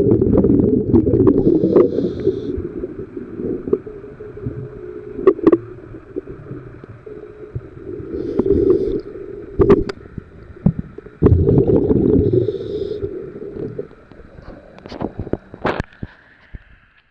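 Underwater sound of a scuba diver breathing through a regulator. Rumbling bursts of exhaled bubbles come every few seconds, with sharp clicks and knocks in between.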